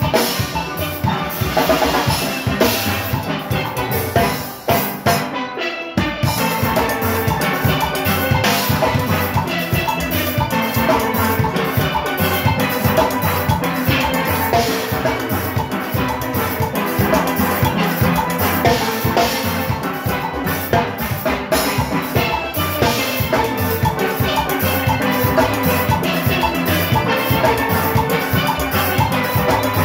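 Steel orchestra playing fast, with steelpans over a drum kit and engine-room percussion. The band drops out briefly about five seconds in, then the full band comes back in and plays on.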